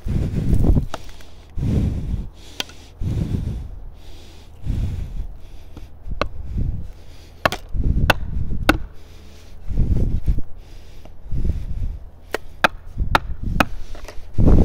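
A plastic felling wedge being struck again and again to drive it into a tree's cut and free a pinched Stihl chainsaw. Dull thuds come about every second and a half, with sharper cracking hits, most of them in the second half.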